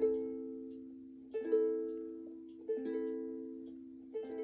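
Plucked string instrument strumming four chords, one about every 1.4 seconds, each left to ring and fade out: the opening chords of a song.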